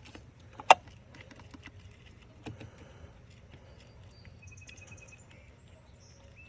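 Light metallic clicks and taps of hand work on engine parts, with one sharp click a little under a second in and scattered small ticks after it.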